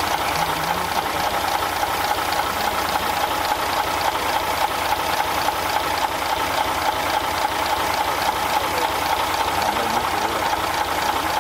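Scania 141's 14-litre V8 diesel idling steadily, close up at the open engine bay, with an even, rhythmic beat.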